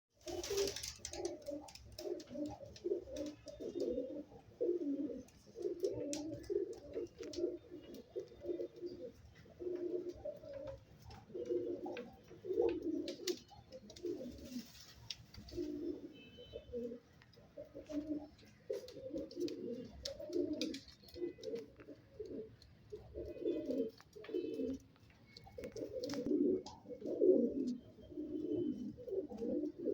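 Rampuri pigeon cooing over and over in low pulsing calls, one run of coos after another, with scattered faint clicks.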